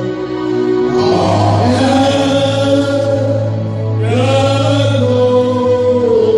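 Men singing a slow worship chant into microphones, holding long notes over a steady low tone, with new phrases starting about a second in and again about four seconds in.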